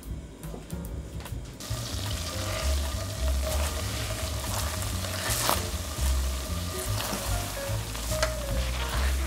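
Red wine sizzling and boiling hard in a hot stainless-steel pan as it deglazes the browned residue, stirred with a silicone spatula that scrapes the pan a few times. The sizzle grows louder about a second and a half in.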